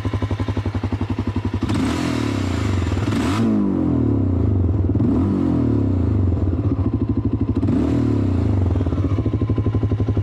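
Zero electric motorcycle ridden over a rough dirt and gravel track: a whine that rises and falls with the throttle, over clatter and knocks from the stony surface. A short burst of hiss comes about two seconds in.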